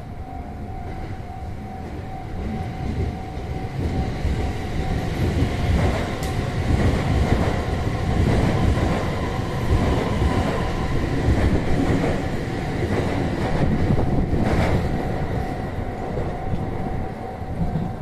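JR West 287-series electric limited express passing on an elevated track. Its rumble and wheel noise build over a few seconds, stay loud, then ease off near the end, with a couple of sharp clacks from the wheels. A level-crossing warning bell rings steadily throughout.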